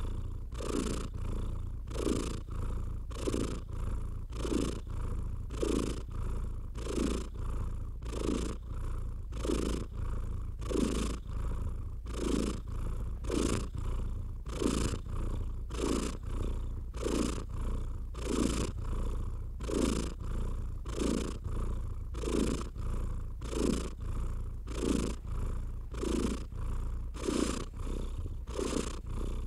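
Cat purring steadily, its rumble swelling and easing in an even rhythm about twice a second.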